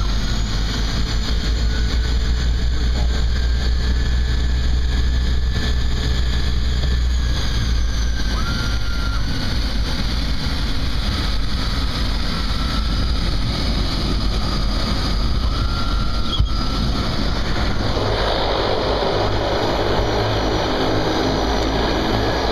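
Propeller aircraft's engine running steadily as the plane moves on the ground, heard from inside the cabin as a constant low hum. About eighteen seconds in, a rougher, fuller rush joins it.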